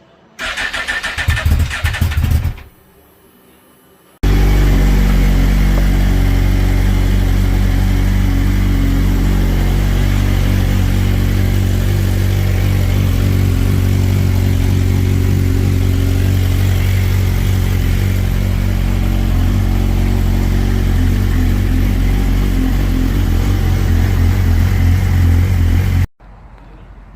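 Race motorcycle engine, freshly rebuilt, running under load on a dynamometer: first a short loud burst that stops about two and a half seconds in, then a long, loud, steady run that cuts off suddenly near the end.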